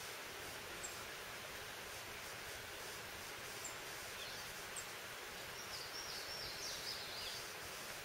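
Steady outdoor background hiss. Faint, high bird chirps come through it now and then, with a short run of stepped, falling chirps a little past the middle.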